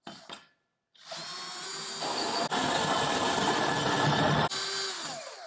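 Power drill turning a 6-inch hole saw as it cuts through drywall. The drill starts about a second in, runs steadily for a few seconds, and winds down near the end.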